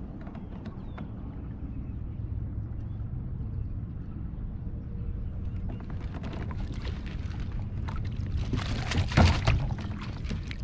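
Water splashing and dripping from a landing net with a pike in it as it is worked and lifted out of the water beside a kayak, with a loud burst of splashing about nine seconds in. A steady low rumble runs underneath.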